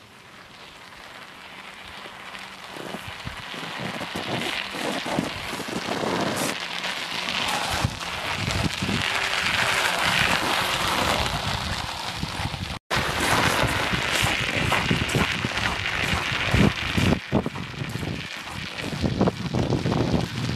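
Studded mountain-bike tyres crunching and crackling over packed snow, with wind rushing on the microphone. The noise fades in over the first few seconds and cuts out for an instant about thirteen seconds in.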